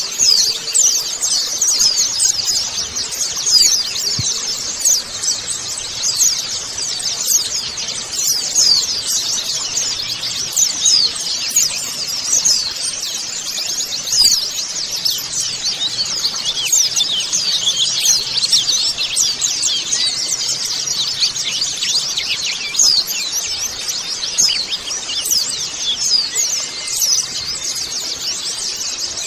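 A flock of white-eyes (pleci) twittering together: a dense, continuous chorus of many quick, high-pitched chirps overlapping, most sliding downward in pitch.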